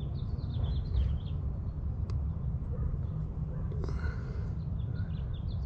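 A small bird chirping in quick runs of short high notes near the start and again near the end, over a steady low outdoor rumble, with a brief rubbing sound about four seconds in.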